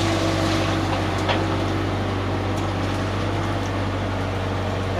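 Engine of a work tractor running steadily at a constant speed, with a low hum.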